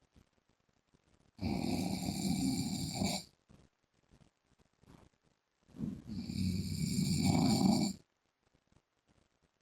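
A man snoring loudly and regularly in his sleep: two long snores of about two seconds each, some four seconds apart, with near silence between them.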